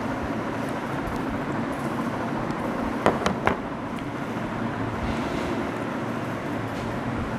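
Steady rushing background noise with a faint low hum, broken by two quick clicks about three seconds in.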